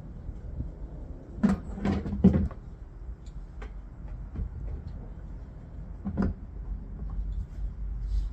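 Plastic aftermarket fuel tank being handled and fitted back onto a dirt bike: a quick run of three knocks and clunks, then another single knock a few seconds later.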